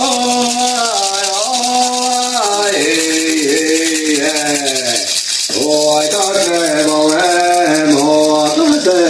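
A maracá rattle shaken fast and steadily under a chanting voice that sings a melody in held notes, stepping up and down, with a brief breath about halfway through.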